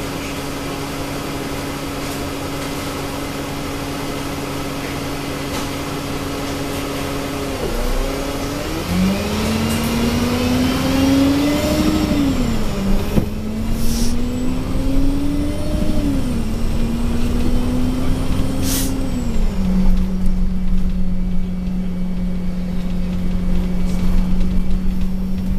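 Cummins six-cylinder diesel and Voith four-speed automatic gearbox of an Alexander Dennis Enviro200 MMC bus, heard from inside the saloon: idling steadily, then pulling away about eight seconds in with a loud whine that rises in pitch and drops at each of three gear changes, before settling to a steady tone at cruising speed. Two short sharp sounds come in the middle of the pull-away.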